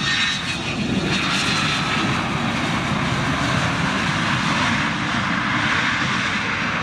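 Saab 37 Viggen's Volvo RM8 turbofan running at taxi power as the jet rolls past: a steady, loud jet noise with a faint whine, growing over the first second and then holding.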